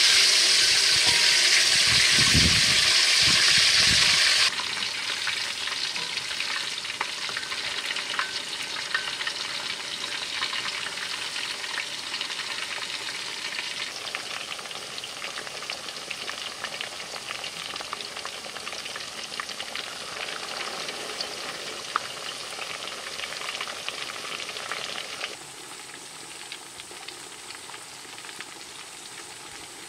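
A whole chicken coated in chili paste deep-frying in a wok of hot oil, sizzling and bubbling steadily. The sizzle is loudest for the first four seconds or so, then settles to a quieter, even sizzle with small crackles.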